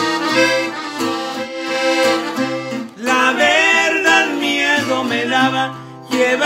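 Diatonic button accordion playing a melodic instrumental interlude of a norteño song, over a bajo strummed in a steady rhythm with bass notes.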